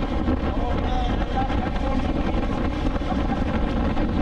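2020 BMW S1000XR's inline-four engine running at a steady speed on the move, with road and wind noise mixed in.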